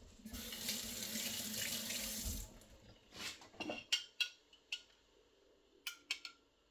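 Kitchen tap running for about two seconds, then shut off, followed by a string of short clicks and knocks, as of a dish being handled.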